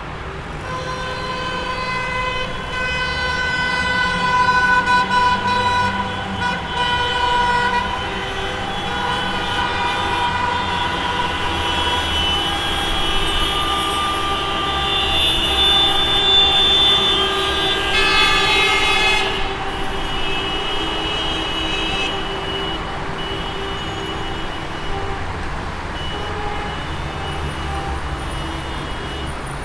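Traffic jam: many car horns honking at once, several held long and overlapping, over the low rumble of idling and passing vehicles.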